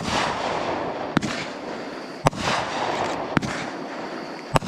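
Aerial fireworks going off, about four sharp bangs roughly a second apart, each trailing off in a fading hiss.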